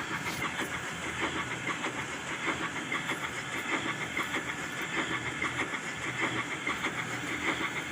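Steam locomotive sound effect: a steady hiss of steam with fine, rapid rattling throughout.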